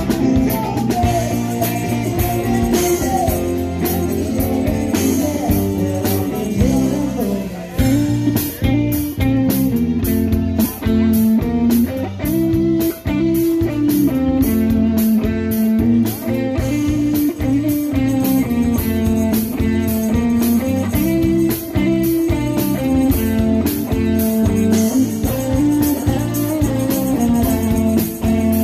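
Live band playing an instrumental passage: electric bass guitar, electric guitar and drum kit, with a steady beat.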